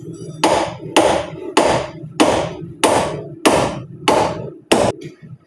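Hammer striking a ball joint separator fork wedged into a truck's front suspension, eight heavy metal-on-metal blows about one every 0.6 seconds, each ringing briefly. The blows drive the fork in to pop the worn lower ball joint out of the steering knuckle.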